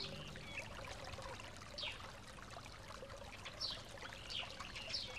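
Ambience of trickling, running water with short falling chirps of small birds every second or two.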